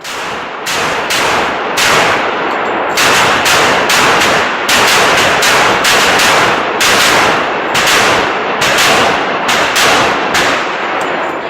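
Gunfire: a rapid, uneven string of shots, about two to three a second, with heavy echo filling the gaps between them. The shots stop about a second before the end.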